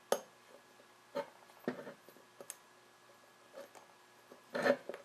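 Faint clicks and light metal scraping as a small piston-ring seal is worked by hand onto a turbocharger turbine shaft, a few separate taps about a second apart, with a short louder rustle near the end.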